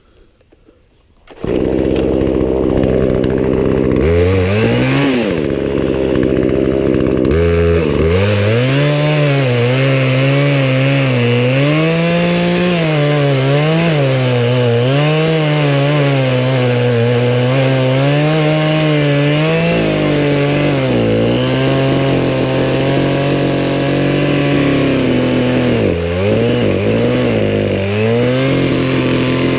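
Poulan Pro two-stroke chainsaw running, coming in suddenly about a second in and staying loud, its engine pitch rising and falling as it works.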